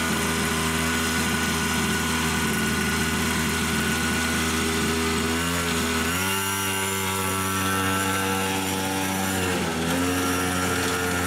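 Small motorbike engine running with a steady note, dipping and shifting in pitch about six seconds in and again near the end.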